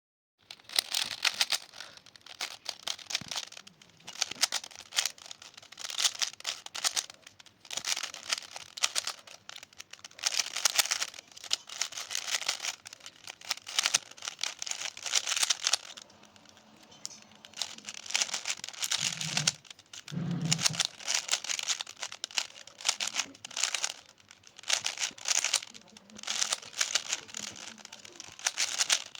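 Rubik's cube being turned quickly: runs of rapid plastic clicking and rasping from the layers, in bursts with short pauses between them.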